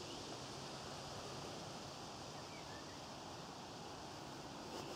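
Faint, steady outdoor background noise, a light hiss like gentle wind on the microphone, with a couple of very faint short bird chirps about halfway through.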